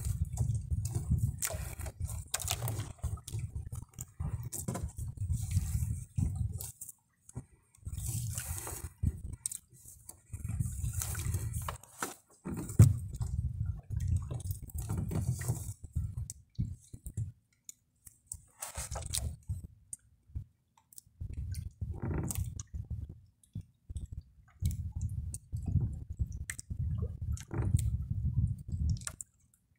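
Wet drift gill net being hauled by hand into a wooden boat: water dripping and splashing off the mesh, with rustling and handling knocks against the hull. It comes in stop-start stretches with short pauses between pulls.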